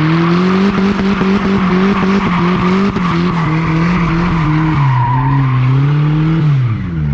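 Turbocharged Nissan Hardbody pickup's engine held at high revs while its rear tyres, locked together by a welded differential, spin and squeal on the pavement. The revs drop off near the end.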